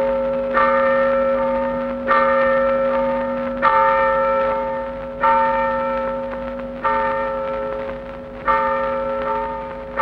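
Church bell tolling slowly, one stroke about every second and a half, each left to ring out into the next: the knell rung to announce the miners killed in the pit disaster.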